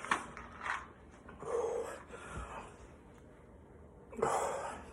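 A person's strained breathing: a few faint clicks near the start, then two or three short, breathy huffs and exhalations, as he holds back a burp after drinking soda.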